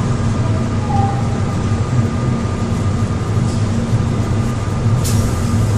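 Korail 3000-series Mitsubishi GTO electric multiple unit running at steady speed, heard from inside the passenger car: an even low rumble and hum of wheels and running gear, with a sharp click about five seconds in.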